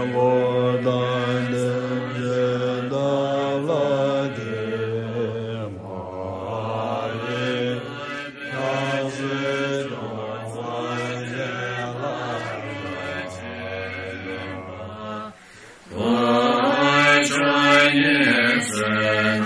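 Group of Tibetan Buddhist practitioners chanting a liturgy in unison, many low voices held on a steady pitch. The chant breaks off briefly near the end and starts again louder.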